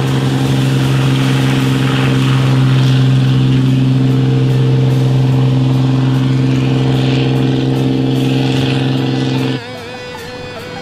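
Inboard engine of a classic wooden boat running at a steady speed, a loud, even, low drone that cuts off suddenly near the end.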